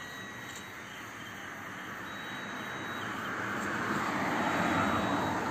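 A motor vehicle passing on the road: a rush of engine and tyre noise that grows steadily, is loudest about four to five seconds in, and begins to fade near the end.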